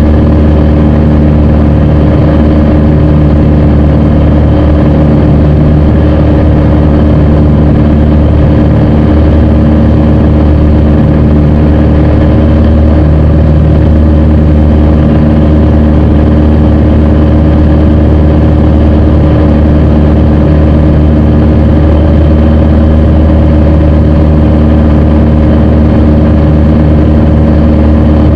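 Piper PA-28 light aircraft's single piston engine and propeller droning steadily in cruise, heard inside the cockpit.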